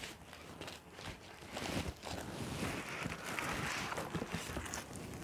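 Packaging of a YouTube Gold Play Button being handled and unwrapped: irregular rustling with a few light knocks, denser in the middle.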